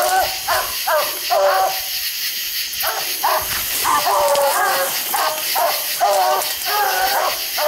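Coonhounds barking treed: short, loud barks about two a second, with a brief pause a couple of seconds in. The barking is the sign that the dogs have a raccoon up the tree.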